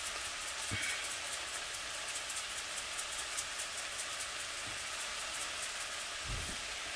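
Stir-fry vegetables sizzling steadily in a frying pan on a hot burner, a continuous hiss with fine crackling, and a soft low bump near the end.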